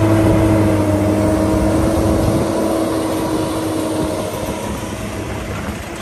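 An engine running steadily with a low hum. It starts abruptly and slowly gets a little quieter.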